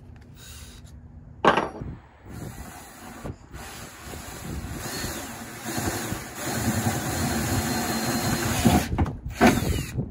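Cordless drill boring a 1/2-inch hole through the pickup's sheet-metal bed floor and bed liner to enlarge a riv nut hole that was too small. After a short sharp burst about a second and a half in, the bit grinds steadily through the metal, getting louder after about six seconds, then stops with a final short burst near the end.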